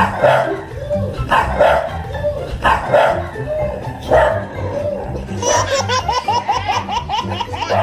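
A dog barking about six times in quick bursts over background music, followed by a run of quick high wavering yelps or whines.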